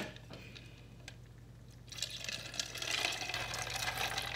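A sharp click, then about two seconds in a steady rush of liquid being poured.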